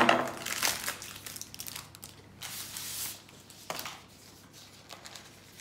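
Packaging of a ready-made puff pastry roll rustling and crinkling as the roll is taken out of its wrapper, in a few bursts, the loudest right at the start.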